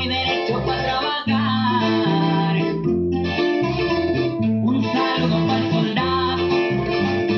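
Recorded music with plucked guitar over a heavy bass line, played back loud through a home sound system.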